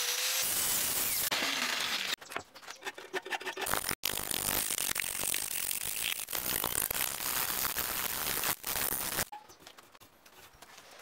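Hand file rasping on 5160 spring steel along a wavy knife blade: dense, fast scraping strokes, broken off abruptly about four seconds in, then turning lighter and quieter over the last couple of seconds.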